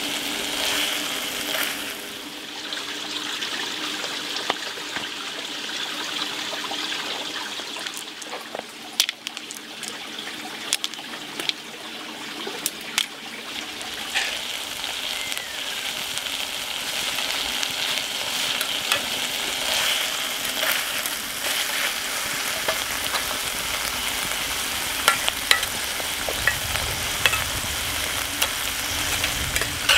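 Chicken and cabbage sizzling steadily in a cast-iron skillet. A utensil stirs and scrapes through the food, with sharp clicks against the pan that come more often in the last few seconds.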